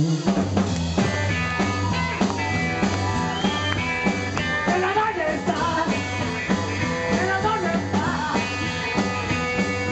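Live rock and roll band playing an instrumental passage: electric guitar over a pulsing upright bass line and drums.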